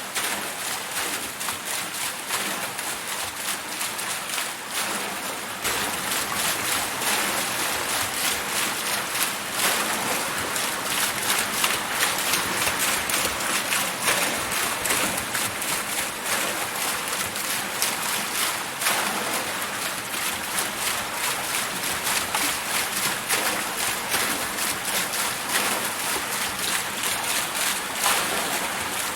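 Water wheel turning, water splashing and spattering off it in a dense, steady rush of small splashes, a little louder from about six seconds in.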